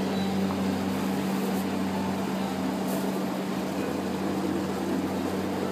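Engine of a Singapore River bumboat running steadily under way, a constant low hum with the rush of water and air over it.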